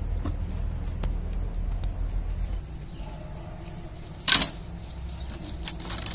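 Bundle of thin bamboo skewers clattering as it is set down on a banana leaf: one short loud clatter a little past the middle, then two sharp clicks near the end, over a low steady rumble.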